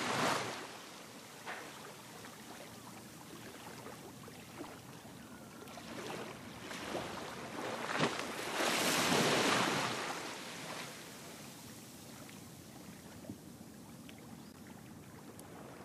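Shoreside wind and surf ambience: a steady hiss that swells for a few seconds near the middle, with a few faint clicks.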